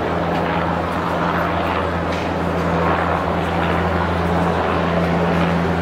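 Steady engine drone, a constant low hum with a noisy wash over it, holding level throughout.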